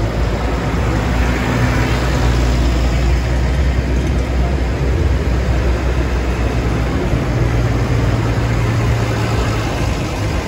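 Large farm tractor's diesel engine running steadily as the tractor rolls slowly past at close range, a continuous low engine note with road and mechanical noise over it.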